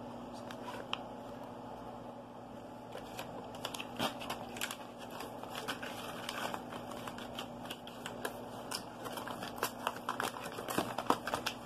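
Foil sheet-mask packet being handled, crinkling in scattered short clicks and crackles from about three seconds in, over a faint steady hum.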